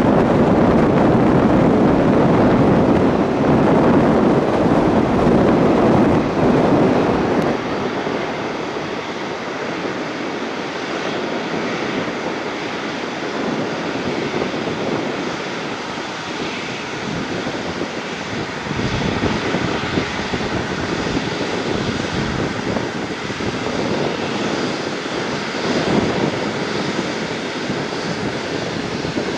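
Lufthansa Airbus A340-600's four Rolls-Royce Trent 500 jet engines running as the airliner passes on the runway, loud for about the first seven seconds, then dropping to a quieter, steady rush as it moves away.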